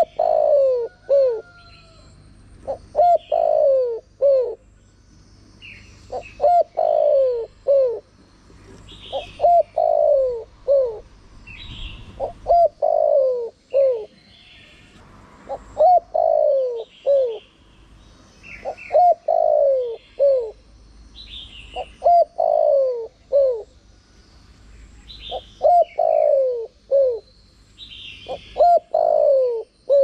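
Spotted dove cooing: the same short phrase of three or four falling coos, repeated about every three seconds. Faint higher chirps of small birds come between the phrases.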